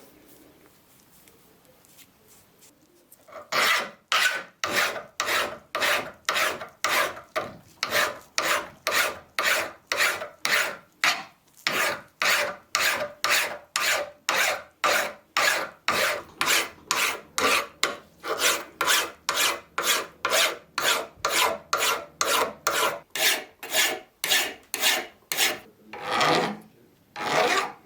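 Hand filing: a file or rasp worked back and forth in steady strokes, about two a second, starting a few seconds in, with two slower, longer strokes near the end.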